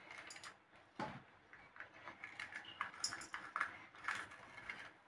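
Faint, irregular crisp clicks and scrapes of a small knife slitting fresh green chillies and scraping out their seeds.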